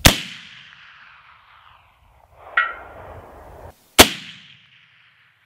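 Two shots from a Sharps .45-70 single-shot rifle, about four seconds apart, each a sharp crack that rolls away in a long echo. About two and a half seconds after the first shot comes a short ringing clang: the bullet striking the distant steel gong.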